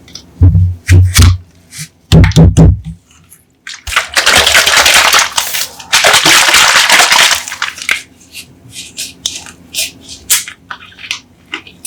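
Coca-Cola bottle handled with two bursts of heavy knocks and crackles, then a loud fizzing hiss of carbonated soda lasting about four seconds, fading into scattered small fizz crackles.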